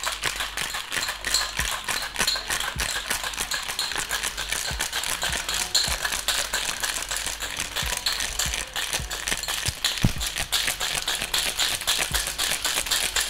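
Ice rattling inside a metal cocktail shaker shaken hard and continuously, a fast, even clatter of many hits a second. The shake chills and froths an espresso martini of vodka, coffee liqueur, espresso and sugar syrup.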